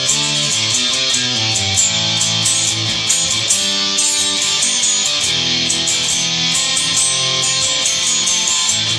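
Electric guitar playing a run of held chords that change about every second, at a steady level.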